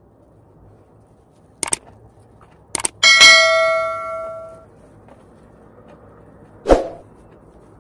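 Subscribe-button sound effect: two clicks, then a bright bell ding that rings out and fades over about a second and a half. A single thump follows near the end.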